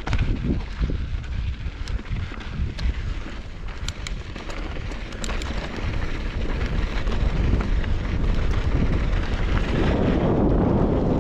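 Wind buffeting a moving camera's microphone over a rumble of riding on a dirt trail, with scattered sharp clicks. The rush grows louder about ten seconds in.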